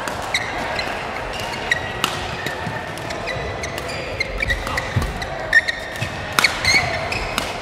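Badminton doubles rally: a string of sharp racket-on-shuttlecock hits at irregular intervals, with sports shoes squeaking on the court mat as the players lunge and turn.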